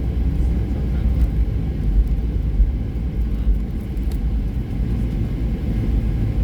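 Steady, low cabin rumble inside a Boeing 737-800 airliner rolling on the ground after landing: engine and wheel noise, with a few faint clicks.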